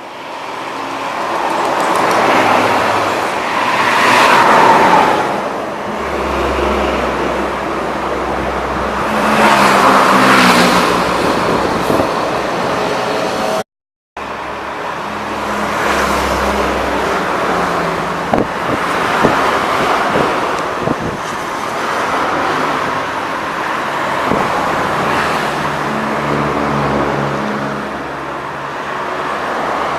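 Buses and other road traffic passing close by on a busy highway: engine and tyre noise swelling and fading as each vehicle goes past. The sound cuts out for a moment about halfway through.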